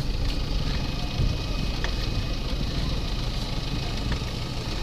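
Car engine and tyre rumble heard from inside the cabin while driving slowly, a steady low drone with a few faint clicks.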